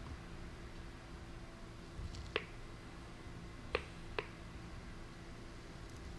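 Laparoscopic needle holder and grasper clicking as they work the suture: three sharp clicks, the first about two and a half seconds in and two more close together around four seconds, over a faint steady hum.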